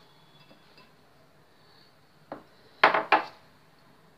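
Sugar-coated dried amla candy pieces tipped from a mesh sieve into a glass bowl. A single knock comes about two seconds in, then a short clatter of a few sharp clicks near three seconds.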